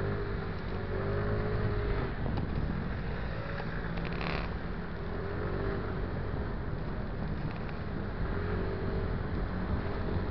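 MBK Tryptik three-wheeled scooter's engine running in city traffic, its note rising and falling several times with the throttle, over steady wind and road noise.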